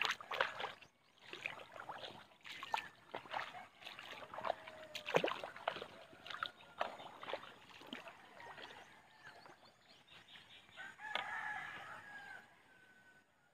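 Footsteps splashing and sloshing through shallow, muddy floodwater, then a bird's long, slightly falling call near the end.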